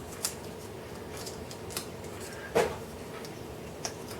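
Light clicks and taps of small clock parts being handled on a workbench, a handful of short ticks with one louder knock about two and a half seconds in, over a faint steady hum.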